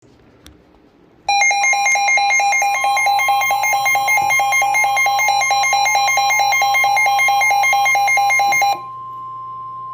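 Emergency alert attention tone: a loud electronic pulsing beep, rapidly alternating in pitch, that starts about a second in and stops about nine seconds in, leaving a quieter single steady tone.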